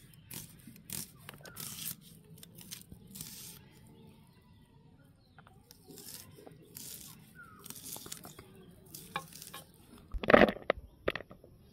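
Onions being sliced on a boti, the upright foot-held Bengali cutting blade: a run of short, crisp crunching cuts, with a couple of louder knocks near the end.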